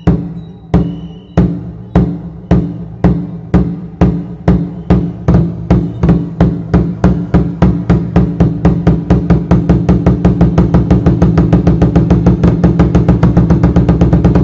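A large drum beaten in a steadily accelerating rhythm, from a little over one stroke a second to about six a second, each stroke ringing with a low tone.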